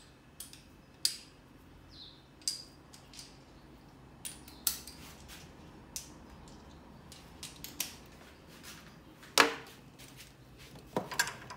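Scattered sharp metallic clicks and clinks of hand tools and metal parts being handled under the hood, with one louder knock about nine seconds in.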